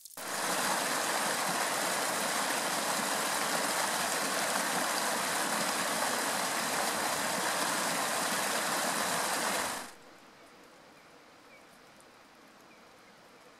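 Snow-covered mountain stream rushing, a loud, steady water noise that cuts off suddenly about ten seconds in, leaving only faint outdoor background.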